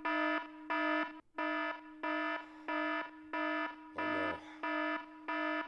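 Electronic alarm siren sounding in a steady pulse, about two buzzy beeps a second, with one short break about a second in.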